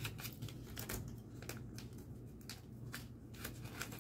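A paper banknote being folded and handled, giving faint, irregular crinkles and small crackles.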